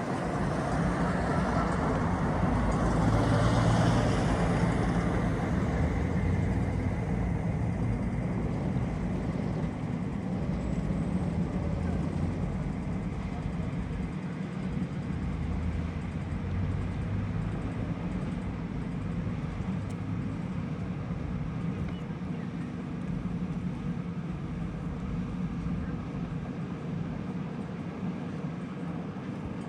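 Steady low drone of a tour boat's engine, with a haze of wind and water noise. The noise swells louder about two to five seconds in, then settles.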